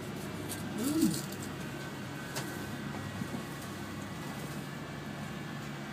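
Steady low hum inside a moving cable car gondola cabin. About a second in, a short hummed voice rises and falls in pitch.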